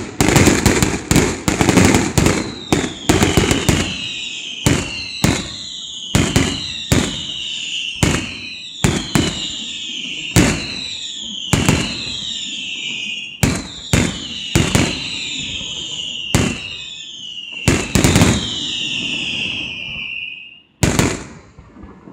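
Fireworks display: a rapid barrage of bangs, then steady single bangs about every second, each trailed by a high falling whistle. The bangs stop near the end, with one last bang after a short gap.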